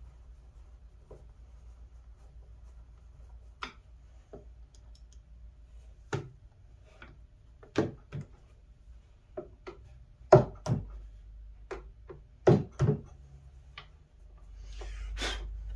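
Scattered clicks and knocks of hands and a small tool working inside a wooden drawer box while fitting hardware, with a few louder knocks about ten and thirteen seconds in and a brief rustle near the end.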